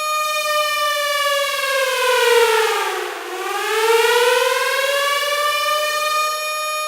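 Civil defense warning siren wailing, the kind sounded to tell people to take shelter. A high held tone sinks in pitch from about a second in, bottoms out near the middle, then climbs back up to the held tone.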